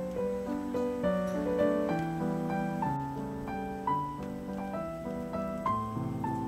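Background piano music: a steady melody of single notes over held lower notes.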